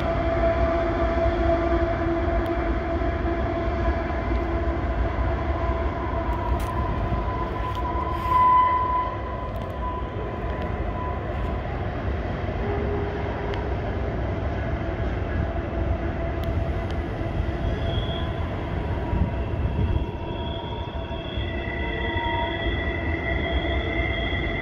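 Canadian Pacific freight train led by GE diesel locomotives rumbling steadily across the valley. From about two-thirds in, high steady squeals of wheels grinding on the curve are added.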